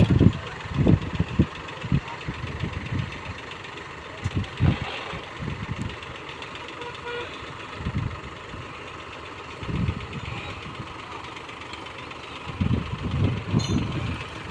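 Heavy machinery engines running steadily, with irregular low thumps and knocks that come in clusters near the start, in the middle and near the end.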